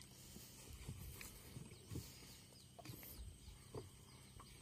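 Near silence: a faint steady low hum with scattered soft ticks and a few faint, short high chirps.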